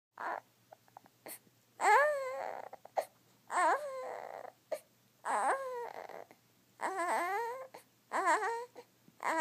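Crying in sleep: a run of five short, high, wavering cries, one about every second and a half to two seconds, each trailing off in a breathy exhale.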